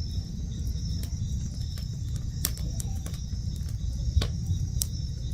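Wood campfire crackling with irregular sharp pops, over a steady chorus of night insects and a low rumble.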